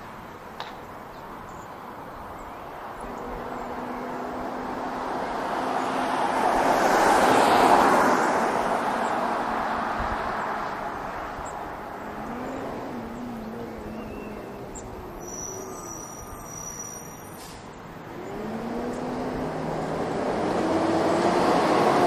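Light residential street traffic: a vehicle passes by, growing louder to a peak about eight seconds in and then fading, and another vehicle draws near toward the end.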